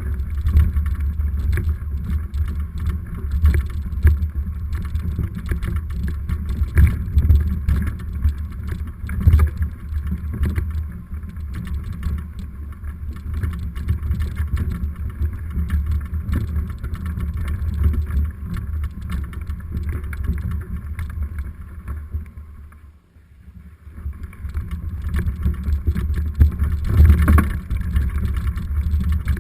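Mountain bike riding down a rough trail, heard through a GoPro: a steady low rumble of tyres and wind with constant rattling knocks from the bike. The noise briefly dies away about 23 seconds in, then comes back.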